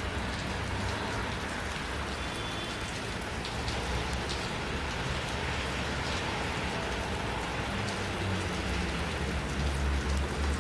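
Steady hiss of wet snow falling onto a wet street and parked cars, with faint scattered ticks of drops and a low rumble underneath that swells near the end.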